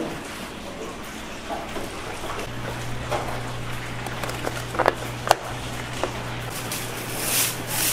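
Clear plastic lids being pressed and clicked onto black plastic take-out bowls: a few sharp clicks a little past the middle, over a steady low hum, with rustling near the end.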